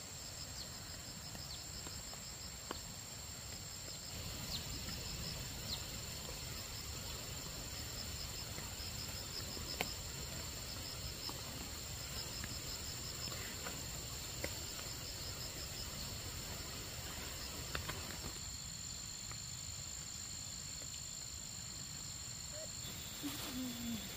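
Insects chirping in a steady high-pitched chorus: a continuous whine with a pulsing trill that comes and goes in repeated runs, plus a few faint sharp clicks.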